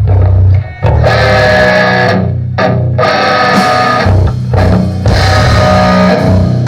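Rock band playing live during a sound check: electric guitar chords held and changed every second or so over bass guitar, played loud through the stage sound system.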